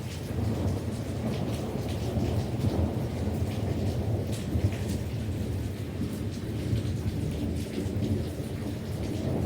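Thunderstorm: thunder rumbling steadily under falling rain, with scattered raindrop ticks on top.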